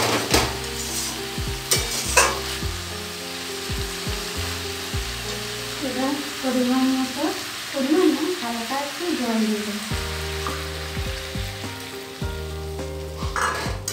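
Banana flower, potato and prawns frying in mustard oil in a metal kadai, with a steady sizzle. A metal spatula scrapes and knocks against the pan, mostly in the first couple of seconds and again near the end.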